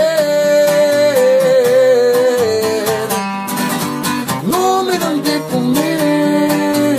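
A Mexican song with strummed acoustic guitars. A man's voice holds one long note that slowly steps down over the first few seconds, then sings a short rising-and-falling phrase.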